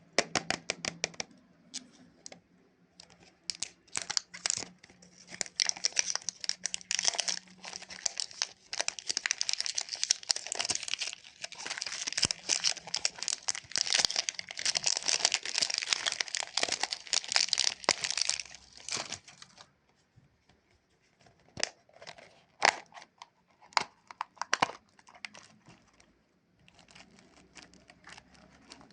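Chupa Chups lollipop's plastic wrapper crinkling and tearing close to the microphone as it is unwrapped, a dense crackle that builds over the first several seconds. After about nineteen seconds it thins to a few scattered crinkles and sharp snaps.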